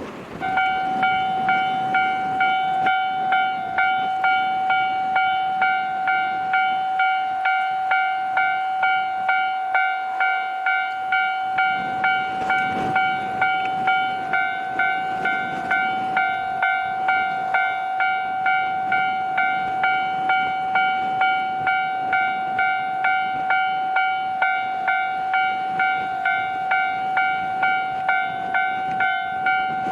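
Japanese railway level-crossing alarm ringing its repeating electronic ding-ding in a steady, even rhythm throughout. It is the warning that a train is approaching the crossing.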